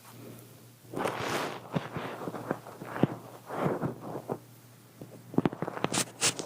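Close-up rustling and handling noises in irregular bursts, with sharp clicks and taps, and a few brighter clicks near the end.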